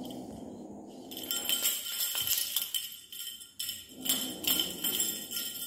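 Small bells jingling in quick, irregular shakes.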